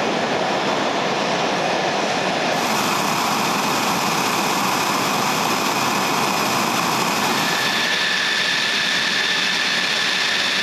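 F-16 Fighting Falcon jet engines running on the flight line: a steady rushing jet noise with a thin high whine over it.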